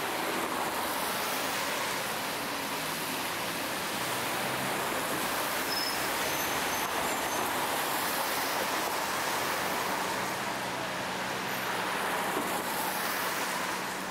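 Steady city street ambience: a continuous wash of road traffic with a faint low engine hum underneath and no distinct events.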